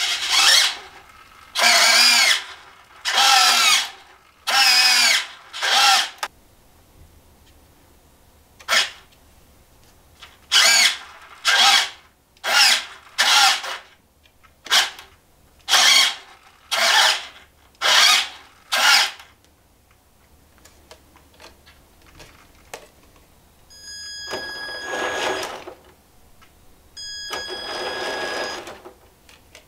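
An RC model truck's add-on sound module playing a string of about a dozen short electronic sound effects with wavering pitch, triggered one after another. Near the end, the truck's electric drive motor and gearing whir twice, each for about two seconds, with a steady high whine over the hum.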